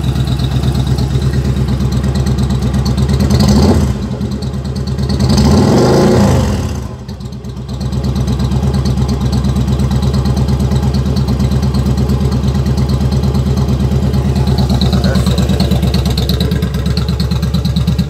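Yamaha Drag Star cruiser's V-twin engine idling just after starting, revved twice about three and six seconds in, then settling back to a steady idle.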